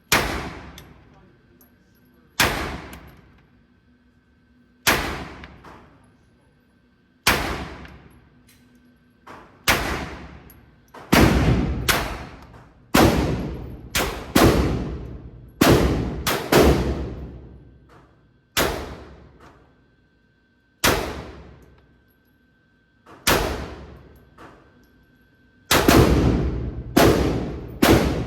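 Glock 25 .380 ACP pistol shots at an indoor range, about twenty rounds fired one at a time, each with a long echoing decay. The shots come a couple of seconds apart at first, then in quicker strings of several shots through the middle and again near the end.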